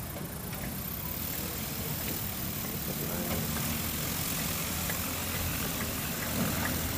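ElectraFlyer-C electric light airplane taxiing with its propeller turning, heard as a steady low rumble with a hiss that grows a little louder about two seconds in.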